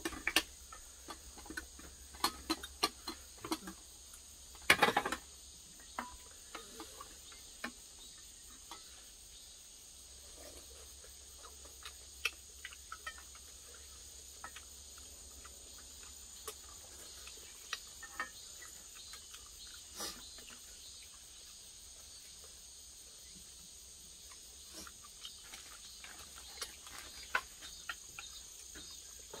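Steady high chirring of insects in the background, with scattered clicks and clinks of chopsticks and spoons against stainless-steel bowls and a metal tray, and a louder clatter about five seconds in.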